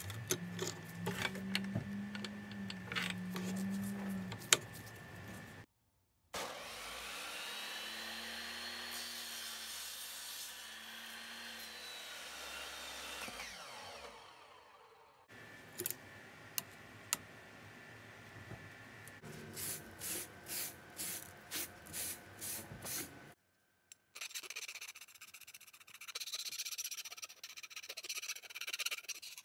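Makita miter saw motor running and cutting through a thin metal flat bar, its whine rising as it spins up and falling as it winds down. Later come quick rhythmic strokes and a high scraping of metal rubbing on metal as the cut pieces are worked by hand.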